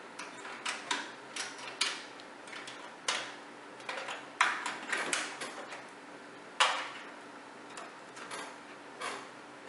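Irregular clicks and knocks of cable plugs being handled and pushed into a desktop computer's ports: about a dozen sharp taps at uneven spacing, the loudest about four and a half and six and a half seconds in, over a faint steady hum.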